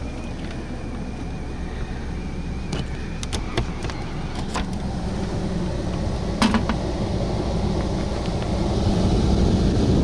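Running air handler's blower giving a steady low rumble, with a few sharp clicks about three to four seconds in and a knock about halfway through.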